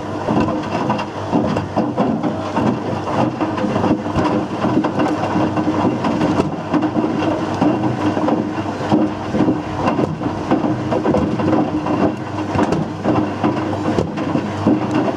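Whirlpool WWDC 7210/1 washing machine drum turning with loose objects tumbling and clattering inside it, over a steady motor hum.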